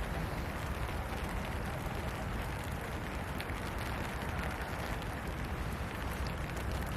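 Steady rain falling: a dense, even hiss with a strong low end and faint scattered drop ticks.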